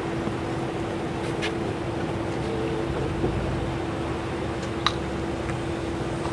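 Steady low rumble with a constant droning hum, the machinery of a lake freighter coming in, with two brief high chirps about a second and a half in and near the end.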